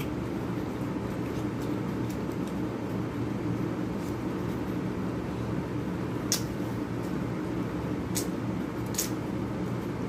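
Steady hum of room ventilation, with a few sharp clicks of eating about six, eight and nine seconds in.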